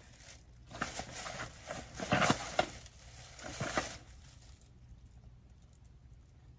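Thin plastic shopping bag rustling and crinkling as things are taken out of it and a small product box is handled, in uneven bursts that are loudest a little past two seconds and die away about four seconds in.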